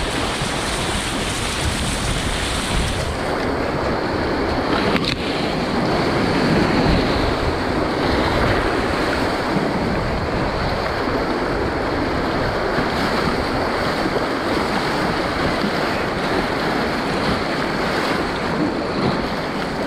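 Churning whitewater of a big river rapid, with waves splashing over and against a kayak's bow, steady throughout and mixed with some wind on the microphone. A short sharp knock comes about five seconds in.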